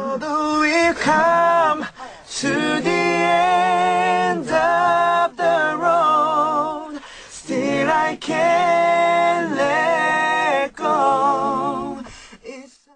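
Young male pop singers singing a song a cappella, with no instruments, in several held phrases with a wavering vibrato and short breaks between them.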